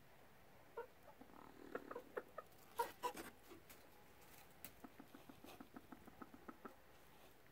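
Hens clucking softly in short pitched notes, with the loudest pair about three seconds in. A faster run of faint short clucks follows near the end.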